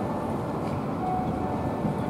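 Steady low rumble of a Toei 8800-series tram approaching along the track, with street noise, while a short electronic tone beeps about a second in and repeats roughly every one and a half seconds.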